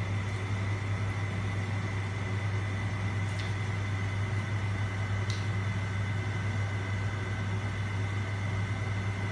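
Steady low machine hum with a faint high whine over it, unchanging throughout, and two faint clicks a few seconds in.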